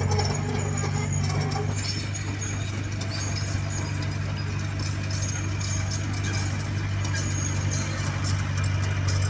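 Diesel engine of an earthmoving machine running steadily with an even low hum.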